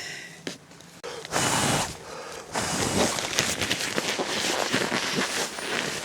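Rustling and crinkling of camping gear being handled and unpacked: a short burst about a second and a half in, then steady crinkling with many small crackles.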